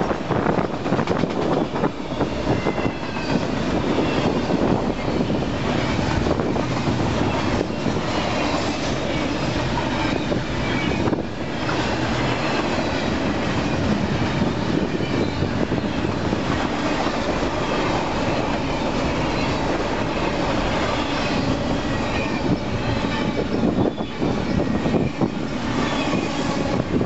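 Union Pacific freight train's autorack and double-stack container cars rolling past close by, a steady rumble and clatter of steel wheels on the rails, with a faint wavering wheel squeal.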